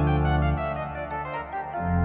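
Church organ playing sustained chords over deep pedal bass notes; one bass note dies away about half a second in and a new, lower bass note comes in near the end.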